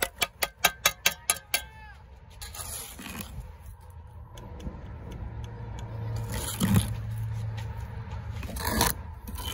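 Steel mason's trowel striking an 8-inch concrete block in a quick run of about ten sharp, ringing taps in the first second and a half, then scraping mortar across the block in a few separate strokes, the loudest about two-thirds of the way in.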